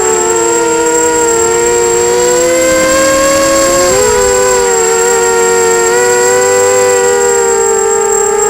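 Electric motors and propellers of a 250-size FPV quadcopter whining in flight, several close tones drifting up and down in pitch as the throttle changes, with a steady high-pitched whine above them.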